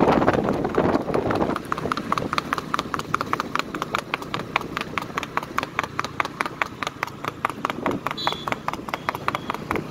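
A horse's hooves clattering on a paved road in a fast, even beat of about six or seven strikes a second, after a loud rush of noise in the first second and a half.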